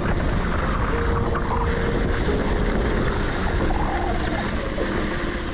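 Wind rushing over the microphone and mountain-bike tyres rolling on the dirt trail while riding down it: a loud, steady rush with a heavy low rumble.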